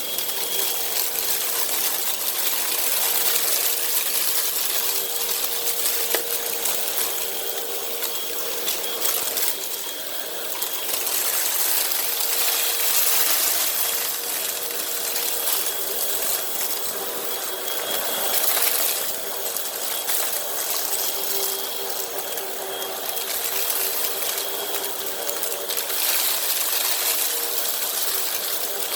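Hoover WindTunnel upright vacuum running steadily with a constant motor whine, sucking up a heavy mess of cat litter and debris that crackles and rattles through it.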